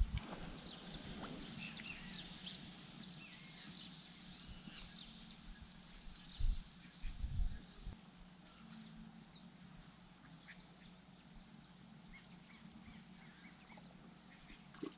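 Faint birdsong: many short high chirps and calls scattered throughout, over a low steady hum, with two brief low thumps about halfway through.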